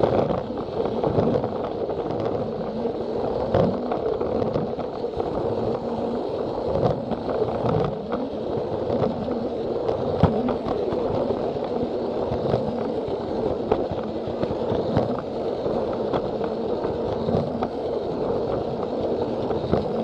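Plarail battery-powered toy train running along plastic track: a steady motor whir with the wheels rattling and scraping over the rails, and irregular clicks as it passes the track joints.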